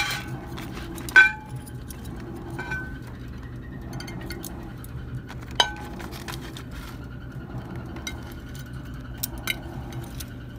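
Metal kitchen tongs clinking against a foil-lined tray, a handful of sharp ringing clinks with the loudest about a second in, over a steady low hum.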